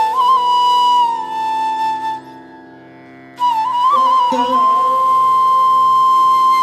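Slow Indian classical flute melody with long held notes and gliding bends, over a sustained drone. The music drops away for about a second near the middle before the flute comes back in.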